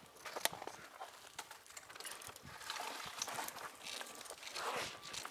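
Rustling and small crackling snaps of dry brush and twigs, with scattered light clicks, from footsteps and handling in undergrowth.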